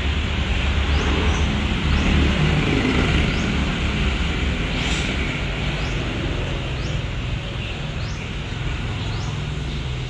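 Steady outdoor background noise: a low rumble with hiss above it. A short, high chirp rising in pitch repeats roughly once a second.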